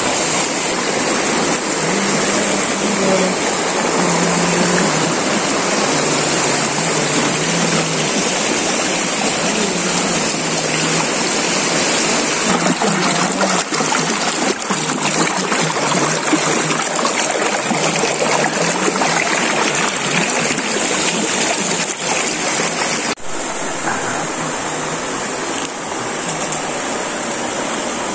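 River water rushing through rapids and pouring between rocks, a steady, unbroken noise of white water.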